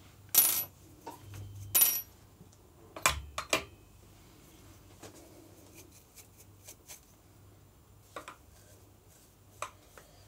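Several sharp metallic clinks and knocks in the first four seconds, one ringing briefly, as the steel burrs and burr carrier of a Weber Workshops EG1 grinder are handled and set down. Then faint taps and soft brushing as leftover coffee grounds are brushed out of the grinder's burr chamber.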